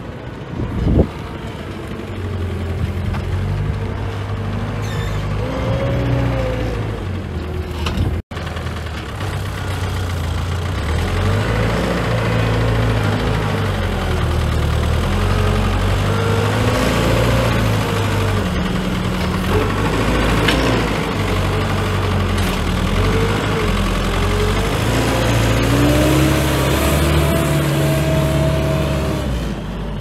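Diesel engine of a Manitou Maniscopic telehandler running close by, its pitch rising and falling again and again as it revs up and down under load while working.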